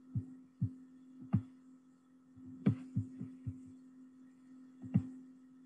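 About eight dull clicks and thumps at irregular intervals, from a computer being worked close to the microphone during screen-share setup, over a steady low electrical hum.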